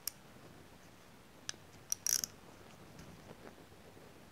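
A few light metallic clicks from a ratcheting wrench and steel nuts as two nuts are tightened against each other on an engine head stud. The loudest is a short run of clicks about two seconds in.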